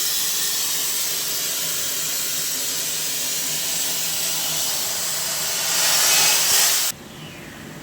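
CNC plasma cutter's torch hissing steadily as it cuts, growing a little louder near the end and stopping abruptly about seven seconds in.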